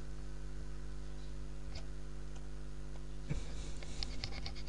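A steady low electrical hum, with a few faint clicks, mostly in the last second and a half, typical of a computer mouse being clicked.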